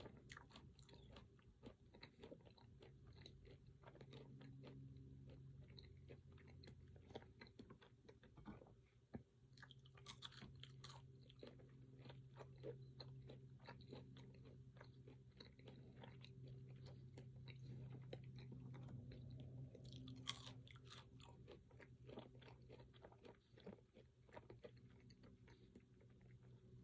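Close-miked chewing and biting of fruit and pecans: a run of irregular wet crunches and small mouth clicks, over a faint steady low hum.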